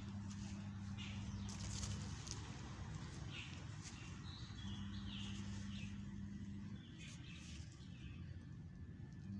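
Faint birds chirping outdoors, a short cluster of high chirps near the middle, over a low hum that comes and goes and a few light clicks.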